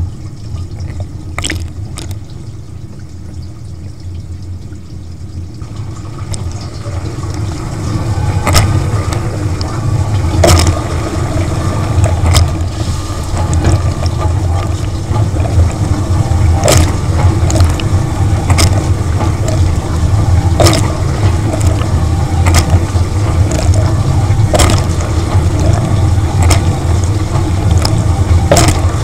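Dishwasher wash pump running with water spraying around the tub, heard from inside the machine, growing louder over the first several seconds. A sharp splashing hit comes about every two seconds as the rotating spray arm's jet sweeps past.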